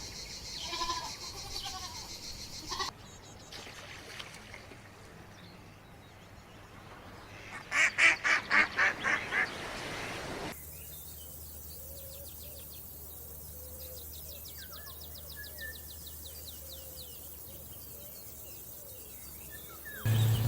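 Farm-animal calls across several cut-together clips. The loudest is a rapid run of about seven loud duck quacks a little under halfway through, and a faint rapid ticking like insects runs through the second half.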